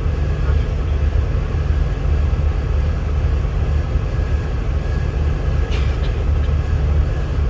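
Greyhound coach's diesel engine running with a steady low rumble, heard from inside the passenger cabin.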